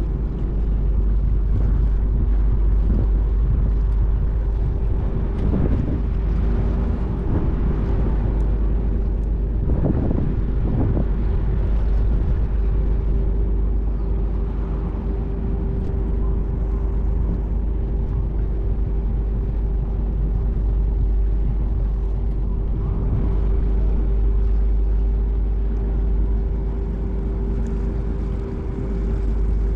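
A vessel's engine droning steadily across the harbour: a constant low rumble with an unchanging hum.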